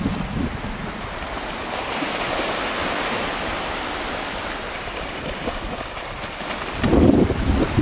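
Shallow sea surf washing in, with a vizsla splashing through it at a run. Wind buffets the microphone at the start and again near the end.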